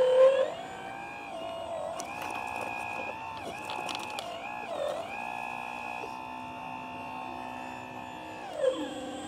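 Whine from the motors of a scratch-built 1/10-scale RC excavator as it swings and works its arm. The pitch rises and falls with the movements and holds steady for a few seconds in between, with a few faint clicks about two to four seconds in.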